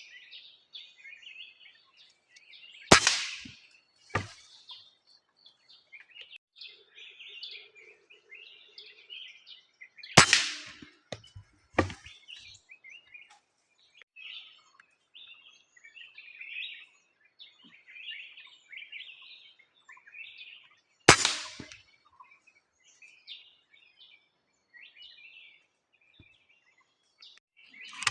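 Birds chirping and calling throughout, broken by three sharp cracks of a 5.5 mm PCP air rifle fired well apart; the first two cracks are each followed a second or so later by a softer knock.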